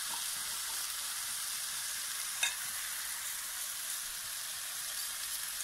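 Sliced bell peppers and onions sizzling steadily in a hot wok over high heat, with a single short clink about halfway through.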